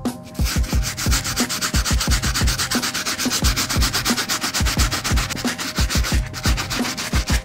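Stiff-bristled sole brush scrubbing the soapy rubber sole of a sneaker in fast back-and-forth strokes, about eight a second.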